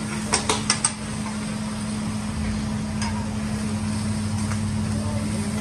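Metal hibachi spatula striking the steel teppanyaki griddle: four quick sharp clanks in the first second, then a lighter tap about three seconds in. A steady low hum runs underneath.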